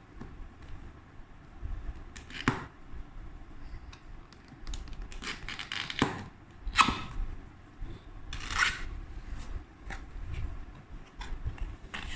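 Hands handling packaging and small products on a table: scattered light clicks and taps with a few brief rustling or scraping swishes.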